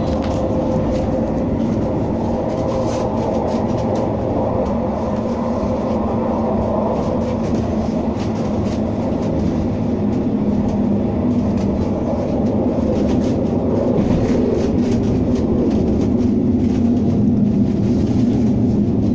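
Interior running noise of a CAF Urbos 3 tram in motion: a steady rumble with a constant hum, getting a little louder about three-quarters of the way through.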